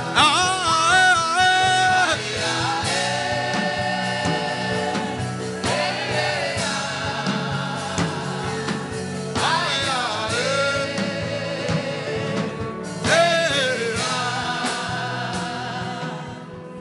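Gospel chant sung by voices in long held, wavering phrases over a steady instrumental backing, fading down near the end.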